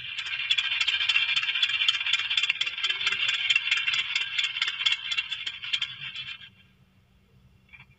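A rapid, even rattle of about five clicks a second that stops abruptly about six and a half seconds in.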